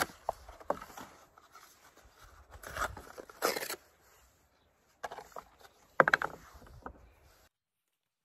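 A paper milk carton being torn and crumpled by hand into kindling for a charcoal grill, in a few separate rips and rustles. The sound cuts off suddenly shortly before the end.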